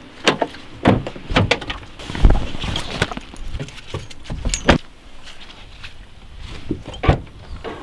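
Car keys jangling on a flip-key fob, then a Škoda Fabia's rear door and tailgate being opened: a series of clicks, latch clunks and door thumps, the loudest about two seconds in.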